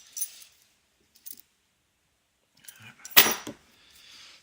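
Light metallic clicks of keys and a brass padlock being handled, then about three seconds in a short, loud, cough-like noise from the person.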